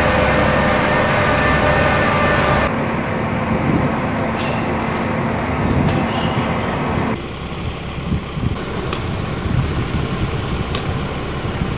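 Mobile crane's diesel engine running steadily while hoisting the spreader bar and slings; the engine sound becomes lower and quieter about seven seconds in. A few light clicks are heard over it.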